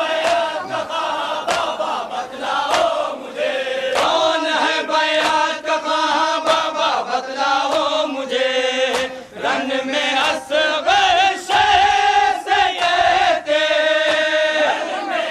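A group of men chanting a nauha, an Urdu mourning lament, in chorus, with sharp slap-like strokes scattered through the singing.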